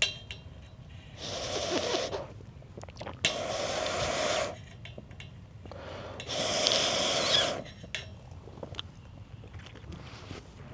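Three long, breathy puffs of air from a person, each about a second long and a couple of seconds apart.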